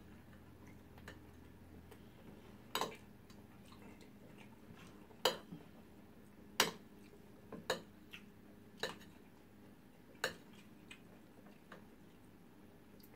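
Metal spoons clinking and scraping against a shared dinner plate as two people scoop rice and stew: about eight sharp, irregular clicks, one to two seconds apart.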